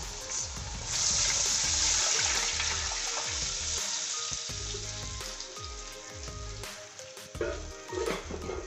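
Water poured into a pot of hot frying masala, hissing loudly as it hits the hot oil about a second in, then settling into a quieter sizzle and bubble. A metal slotted spoon stirs it, with a few stirring sounds near the end.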